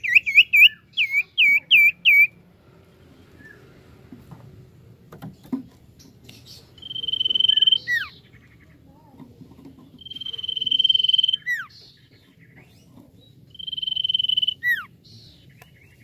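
Common iora (cipoh) singing. It opens with a quick run of about six short rising whistles, then gives three long, steady whistles a few seconds apart, each ending in a note that drops sharply.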